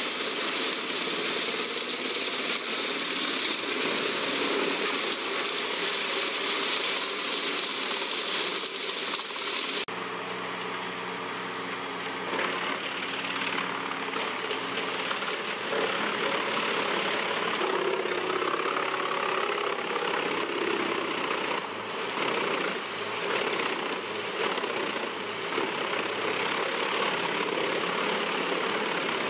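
A Chippo 8010 truck-mounted wood chipper running under load as it chips logs, its diesel engine droning with a steady hiss of chips blowing out. About ten seconds in the sound changes abruptly to a steadier engine drone with less hiss.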